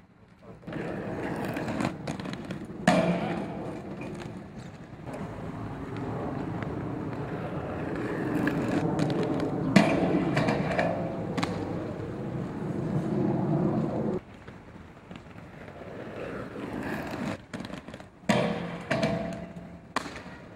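Inline skate wheels rolling on pavement, with a few hard knocks of skates striking the metal barrier rail. The loudest knock comes about ten seconds in, as a skater jumps onto the rail.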